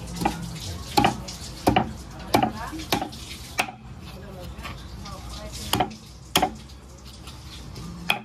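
Meat cleaver chopping raw chicken wings on a thick wooden chopping board. There are six sharp chops in the first four seconds, a pause, then three more.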